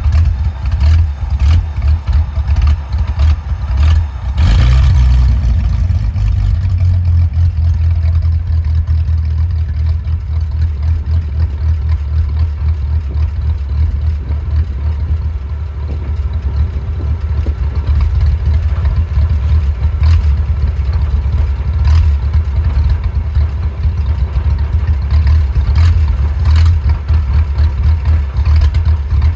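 Willys engine idling roughly, its loudness wavering unevenly from moment to moment, with a brief louder burst about four to five seconds in.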